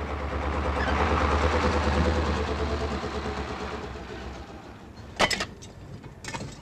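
A lorry driving past on a wet road: engine rumble and tyre hiss swell up and fade away over about four seconds. Then a few sharp knocks, the first about five seconds in and the loudest.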